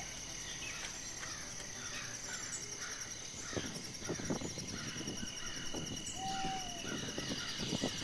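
Insects trilling steadily and birds calling over and over, with a brief whistled note about six seconds in. A few soft thuds of a hoe chopping into soil come through faintly, around three and a half, four and a half and eight seconds in.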